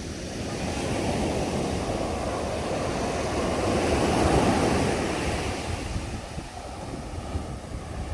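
Sea waves surging up the beach: the wash swells to its loudest about four seconds in, then falls away.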